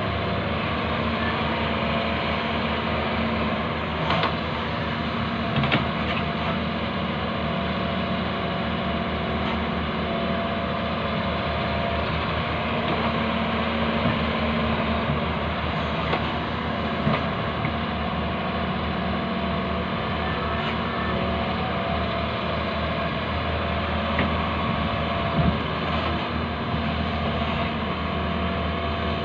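Hyundai wheeled excavator's diesel engine running steadily as the machine digs, with a few short knocks from the bucket working the soil.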